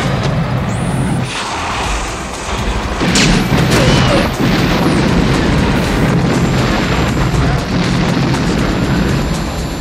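Action-film soundtrack: music mixed with booms and explosion-like effects, loudest a little after three seconds in.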